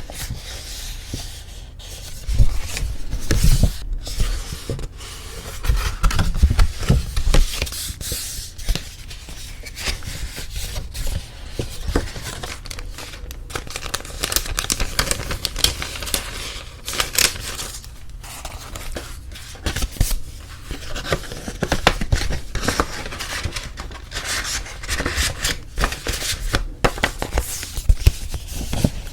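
Paper wedding invitation cards being handled close to the microphone: paper rustling, sliding and crinkling, with sharp crackles and flicks.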